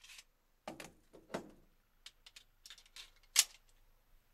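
Clicks and clacks of a Smith & Wesson E-Series 1911 pistol being handled with its slide locked back after the last round. There are a few separate clicks, and the loudest, sharpest clack comes about three and a half seconds in.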